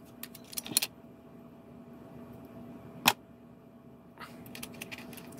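Small clicks and taps of a circuit board and its plastic flashlight case being handled and pushed together, with a cluster of light clicks at the start and one sharp click about three seconds in.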